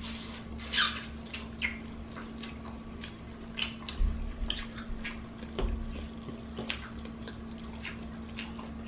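Close-up eating sounds from a seafood boil: lips smacking and sucking and short slurps, every half second or so.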